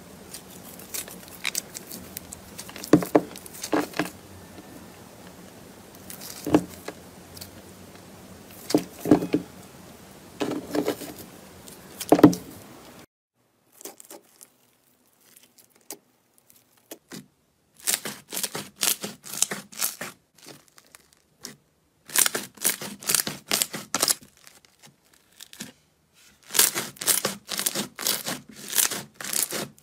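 Thick glossy slime squeezed and kneaded between two hands, giving sharp pops every second or two over a steady hiss. Then foam-bead slime (floam) poked and pressed by hand, crackling in dense bursts of tiny clicks a few seconds long.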